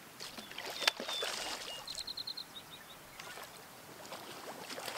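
Water splashing and slapping at the shoreline as a hooked trout is worked toward a landing net, pulsing hardest about a second or two in. A few quick high chirps come about two seconds in.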